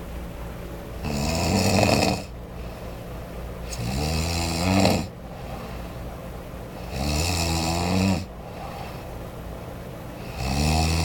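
A sleeping person snoring loudly: four snores, each about a second long, coming about every three seconds.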